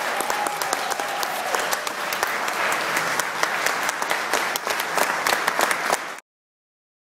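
Congregation applauding, a dense patter of many hands clapping, which cuts off abruptly about six seconds in, followed by dead silence.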